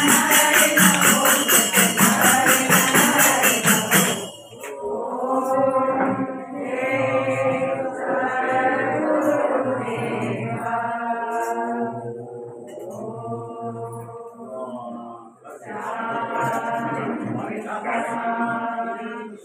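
Devotional bhajan sung by a group with a fast jingling tambourine rhythm, which stops abruptly about four seconds in. Unaccompanied group chanting follows in short phrases.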